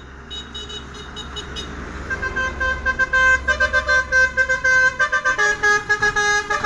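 A truck's telolet basuri multi-tone musical air horn playing a melody in quick pulses, its tones stepping between pitches; faint at first, it gets loud about two seconds in. A low engine rumble runs beneath.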